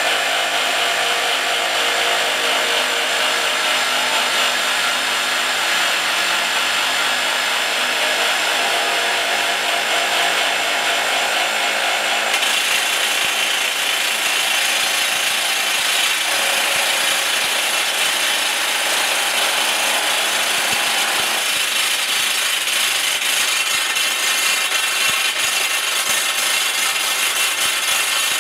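Rock drill on a twin-boom drilling rig running steadily as it bores into rock, a loud continuous noise whose tone shifts about twelve seconds in.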